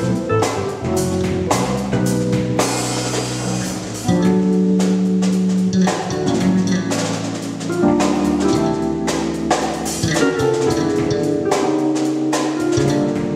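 Gospel band groove: drum kit playing a steady beat with kick, snare and cymbals over electric bass and keyboard chords.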